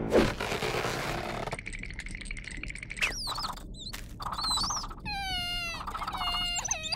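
Cartoon sound effects: a sudden whoosh at the start, short squeaky chirps, then high, wavering, falling wails of cartoon sobbing near the end.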